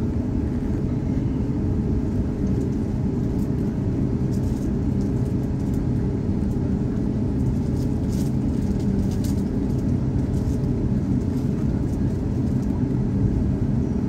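Cabin noise inside an Airbus A350-900 on the ground before takeoff: its Rolls-Royce Trent XWB engines running at idle under a steady low rumble and hum.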